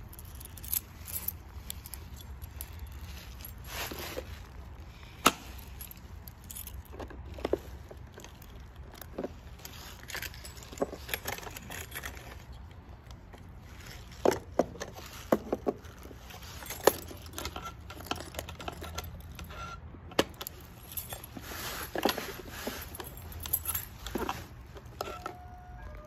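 Small metal keys on a ring jangling and clicking against the brass locks of a wooden toy dollhouse, with its little wooden doors knocking open and shut. The result is a scatter of sharp clicks at irregular intervals.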